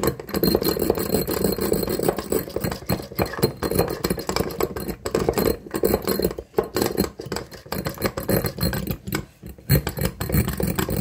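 Push-down spinning whisk rapidly whirring and rattling against the bowl as it beats eggs, pausing briefly near the end.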